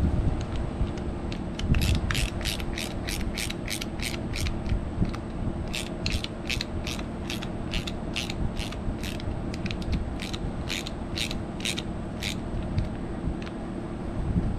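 Socket ratchet wrench clicking in quick, even strokes, about three clicks a second, with a short pause partway through, as a tractor battery cable clamp is tightened down.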